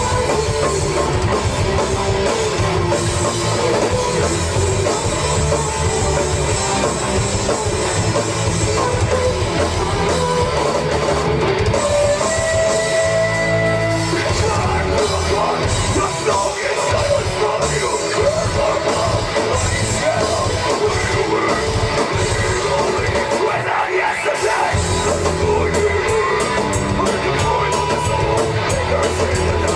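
Live rock band playing loud, with distorted electric guitars, drum kit and sung and yelled vocals. A held guitar note rings out about twelve seconds in, and the bass and drums drop out briefly near the end before coming back in.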